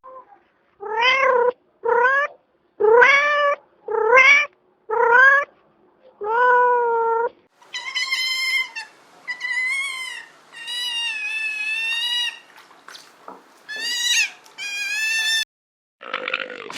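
Domestic cat meowing: six short meows, each rising in pitch, then a run of longer, higher-pitched wavering meows.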